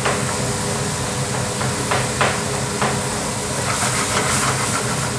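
Curry spices and tomato sizzling in a pan over a gas burner, with a steady hiss. A metal ladle stirs the pan and knocks against it several times, in a cluster near the end.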